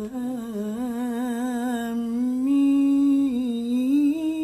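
A male Quran reciter's voice holding one long, ornamented vowel in melodic recitation, the pitch wavering in small trills and stepping up twice.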